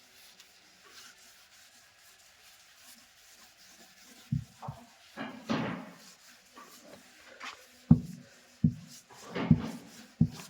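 About six short knocks in the second half, some close together, with a couple of brief scraping or rubbing sounds between them.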